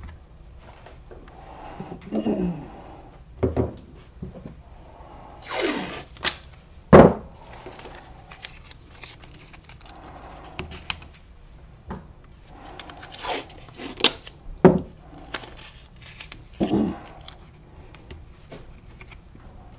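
Blue masking tape being pulled, torn and pressed down by hand on a wooden workbench: scattered rustles, crinkles and small knocks, with one sharper knock about seven seconds in the loudest.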